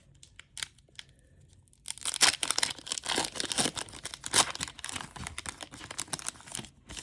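Foil wrapper of a Pokémon TCG booster pack being torn open and crinkled, a dense crackling that starts about two seconds in.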